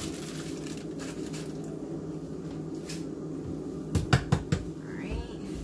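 Steady hum of an air fryer running, with a few sharp knocks and clatters about four seconds in, and a short squeak just after.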